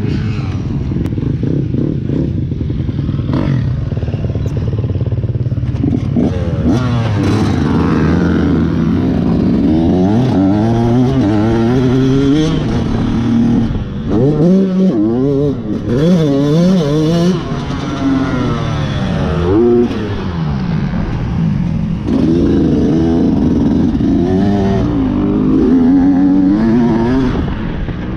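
Yamaha dirt bike engine being ridden on a motocross track. It runs low and steady for the first few seconds, then revs up and down over and over as the throttle is opened and closed, dropping off briefly about halfway through and again later before revving hard near the end.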